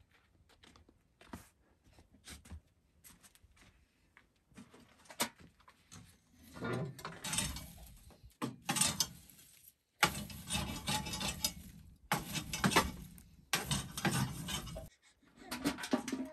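A metal poker scraping and raking the burning coals and ash inside a small iron stove's firebox: faint scattered clicks at first, then from about six seconds in a run of loud rasping strokes, each about a second long.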